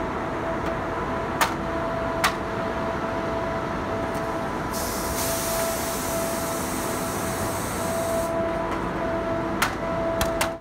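Electric locomotive standing at the platform, humming steadily with a constant whining tone, with a hiss that comes in for a few seconds in the middle. Four sharp knocks, two early and two near the end, from an axe striking firewood.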